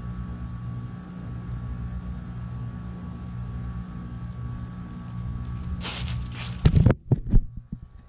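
2021 American Standard Silver Series heat pump outdoor unit running with a steady low compressor hum. About six seconds in comes a brief hiss, then a few loud thumps, after which the sound drops away.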